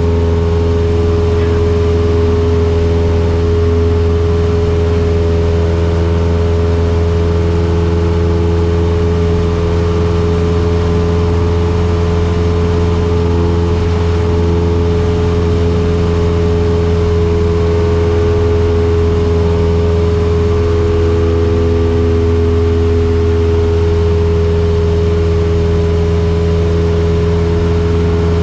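Cessna 172S's four-cylinder Lycoming engine and propeller droning steadily at constant power, heard from inside the cabin. The pitch holds level throughout, with no revving up or down.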